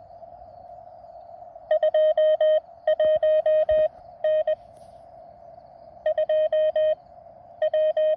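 Morse code (CW) tone from a ham radio transceiver, sent in several quick groups of dots and dashes at a steady high pitch, over a constant narrow band of receiver hiss.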